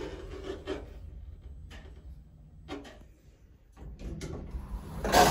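Orona passenger lift car moving upward: a low running hum with a few faint knocks about a second apart, the hum growing louder toward the end and then a sharp clunk as the car comes to a stop.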